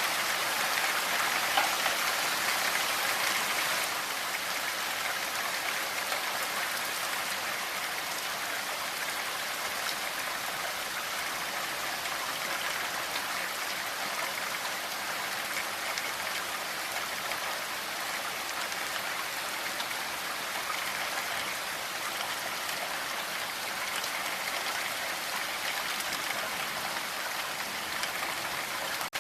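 Steady rain falling, an even hiss that eases slightly about four seconds in.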